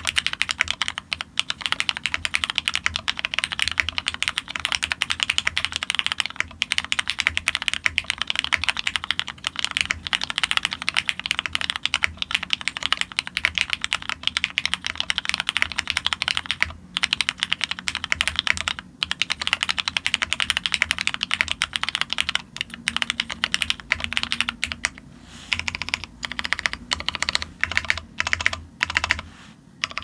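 Fast, continuous typing on a custom F1-8X mechanical keyboard with lubed Hyperglide MX Black linear switches, mounted plateless in a foam-dampened case. Near the end the typing thins out into slower, separate keystrokes.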